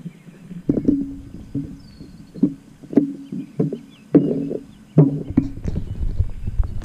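Crashed FPV quadcopter in grass, its motors firing in short, irregular buzzing bursts that jostle the craft, about eight of them.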